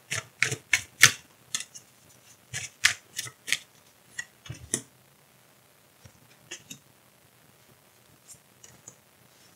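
A deck of oracle cards being shuffled by hand, with a quick run of sharp card snaps and clicks for about five seconds. After that come a few fainter taps as cards are dealt onto the wooden tabletop.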